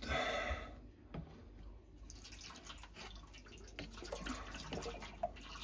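Water poured from a plastic jug into a gas boiler's heat exchanger, trickling and splashing down inside it to wash out the debris loosened by wire-brushing. The splashing picks up about two seconds in.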